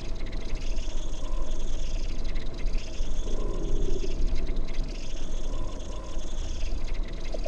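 Dark ambient sound-design drone: a deep, rumbling bass bed under a hissing upper layer that swells and fades about every two seconds, with a falling sweep starting right at the end.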